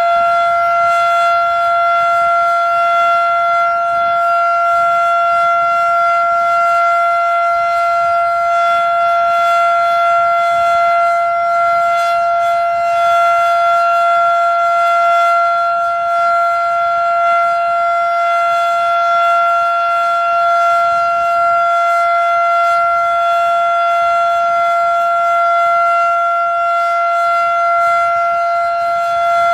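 Federal Signal Model 7 outdoor warning siren sounding the steady full-alert signal: one loud, unwavering tone held at constant pitch, with wind noise underneath.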